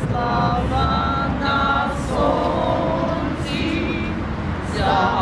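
A group of women singing a slow song together in held notes, over a low rumble of wind on the microphone.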